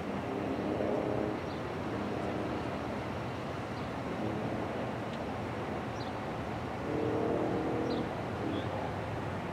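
Distant diesel locomotive horn, several notes sounding together as a chord. It blows a long blast about half a second in, a short faint one near the middle and another long blast about seven seconds in, over a steady rumble of wind. A few bird chirps are heard.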